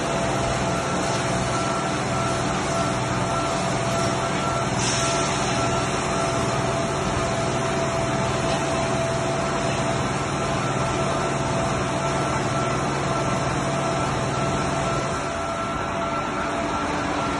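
Christ automatic rollover car wash gantry at work on a car: water spray hissing over the steady hum and whine of the machine's pumps and motors. The low hum drops out near the end as the brushes come in.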